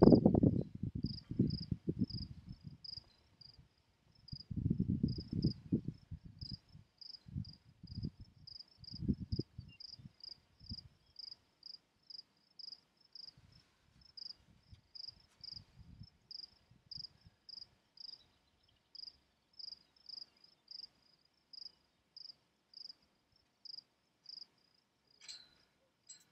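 A cricket chirping steadily, about twice a second, with bursts of low rumble in the first ten seconds.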